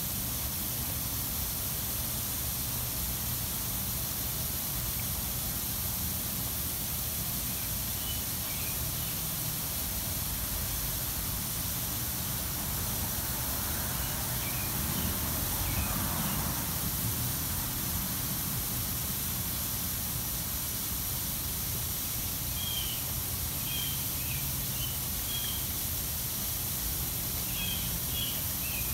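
Steady hiss of a pop-up lawn sprinkler head spraying a fine jet of water, with short high chirps heard now and then, most often near the end.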